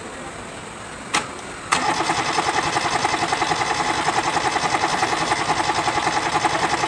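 Kubota D650 three-cylinder diesel on a B6001 tractor being cranked by its starter motor, after a click at the switch. The starter whines with fast, even pulses for about five seconds and stops suddenly without the engine catching, typical of the hard starting caused by a stuck injection-pump plunger.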